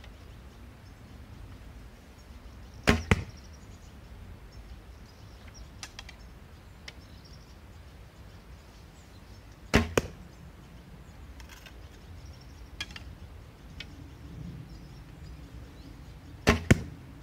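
Three shots from a Wild Mountain Dolomite one-piece hunting recurve (62 inch, 35 lb, ash limbs), about seven seconds apart. Each is a sharp crack of the string on release, followed a split second later by a second crack as the arrow strikes the target.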